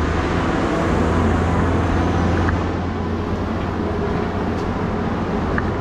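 Motor vehicle engine running steadily: a constant low hum under a noisy hiss, with a couple of faint clicks.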